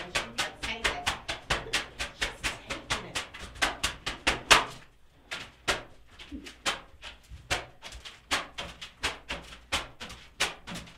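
A flogger's tails striking a person's body in a quick, steady rhythm of several strokes a second. There is a short pause about five seconds in, and one hit just before the pause is the loudest.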